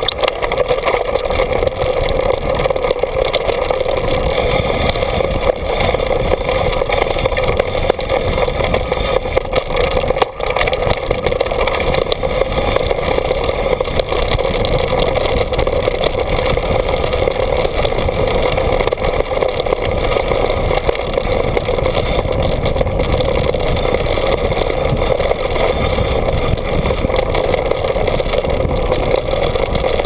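Loud, steady riding noise of a downhill mountain bike rolling over a dirt and gravel trail: tyre roar and rattling of the bike, picked up by a camera mounted on the handlebars.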